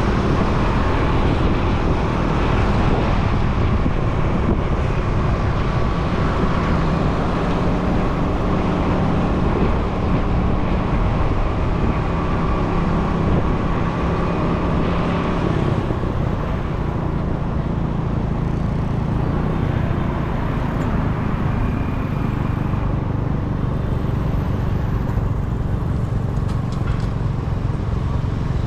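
Motorcycle engine running at cruising speed under wind and road noise, heard from a camera on the moving bike, with passing traffic around it. The engine note holds steady, then eases lower about halfway through.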